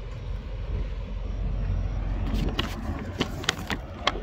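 Low steady rumble of idling truck engines, with about half a dozen sharp clicks in the second half.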